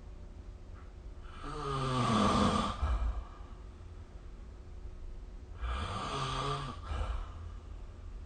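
A sleeping person snoring: two snores about four seconds apart, the first one louder and longer.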